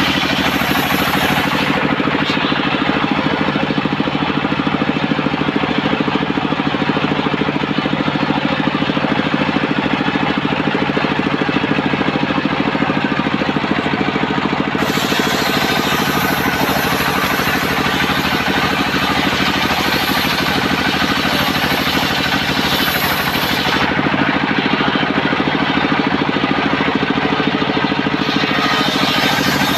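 Engine of a homemade circular-saw rig running steadily, with a higher hiss that comes and goes twice.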